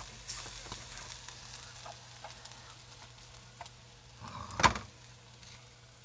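Pork kimchi frying in a small metal pan, a faint sizzle with light clicks of chopsticks against the pan as it is stirred. A single sharp metal knock rings out near the end as the pan is lifted off the burner.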